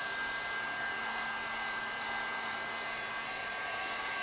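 Heat gun blowing hot air steadily to dry alcohol off a washed graphics card's circuit board. A steady whine rides over the rush of air.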